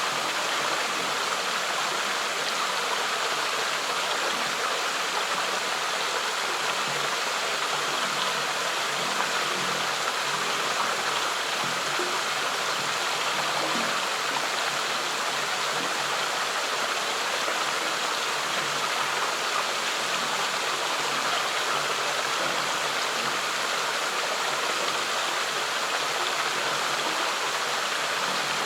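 Water flowing in a stream, a steady rushing and splashing that holds an even level.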